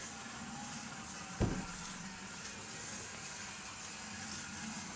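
Faint steady hum of a Faller Car System truck's small electric motor running on the road, with one sharp click about one and a half seconds in.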